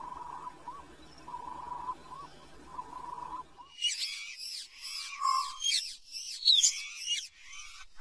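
A repeated drawn-out animal call, each note held steady with a short upward flick at its end, over a low hum. A little under four seconds in, the sound changes abruptly to a busy chorus of high chirps and whistling bird calls, some sweeping up or down in pitch.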